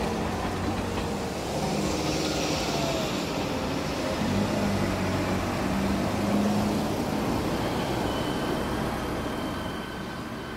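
A JR Shikoku 1500 series diesel railcar running slowly into a station: its diesel engine runs steadily, strengthening about midway, with wheel and rail noise. A thin high squeal comes in near the end as it nears the platform.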